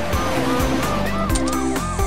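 Upbeat children's-song intro music with a steady beat, and a cartoon police-car siren sweeping up and down in quick repeated yelps, about four a second.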